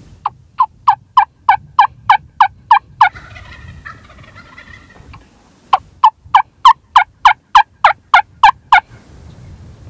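Two loud runs of about ten sharp yelps each, about three a second, from a wing bone turkey call. Between the runs comes a fainter, garbled gobble from a wild Rio Grande turkey.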